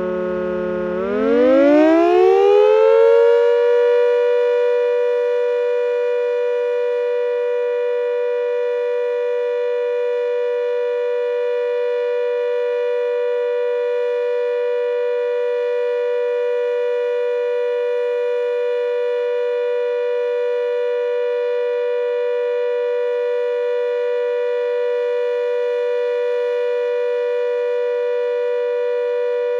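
Klaxon GP8 siren on a routine test. About a second in its pitch climbs sharply from a lower note over a couple of seconds, then it holds one steady note.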